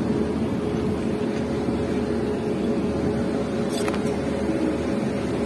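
Locomotive standing at idle, its engine and machinery giving a steady low hum with a faint click just under four seconds in.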